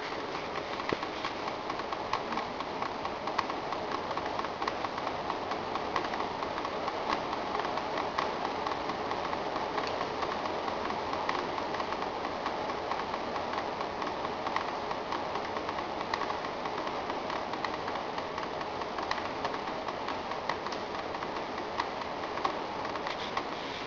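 Water leaking through a roof indoors: many irregular small drips and taps over a steady hiss.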